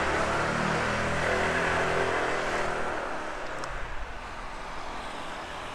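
Honda PCX 150 scooter's single-cylinder engine running steadily as it climbs a ramp. Its note fades about three seconds in, leaving a steady hiss.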